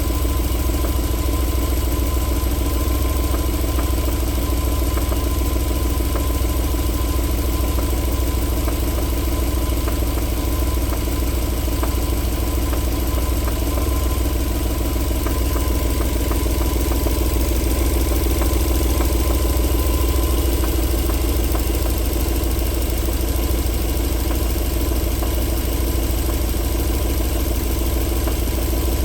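1994 Alfa Romeo 3.0 24-valve V6 engine idling steadily with a knock running through the idle, the knocking that comes back once the engine has warmed after about four minutes' running.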